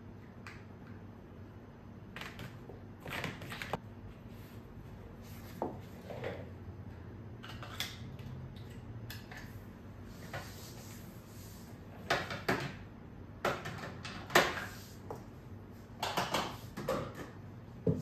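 Light clicks and clatter of small objects being picked up and set down in a plastic tray on a desk, in scattered bursts that bunch up in the second half, the sharpest knock about two thirds of the way through, over a low steady hum.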